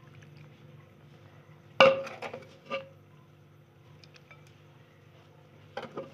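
Metal ladle clinking against a glass serving bowl as curry is spooned into it: one sharp clink about two seconds in, then a few lighter knocks, and another couple of clinks near the end.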